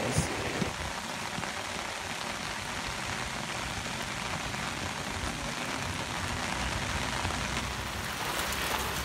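Heavy rain falling steadily on rock and water, an even hiss without breaks.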